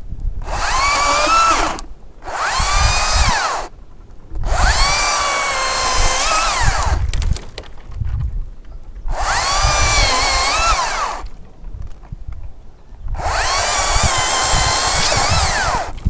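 Makita cordless top-handle chainsaw cutting ginkgo branches in five bursts. Each time its electric motor whines up to speed and then winds down again.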